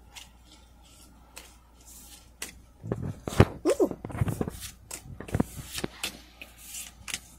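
Pokémon trading cards being flipped through in the hand, each front card slid to the back of the stack: a run of short papery clicks and swishes, loudest in a cluster about three to four and a half seconds in.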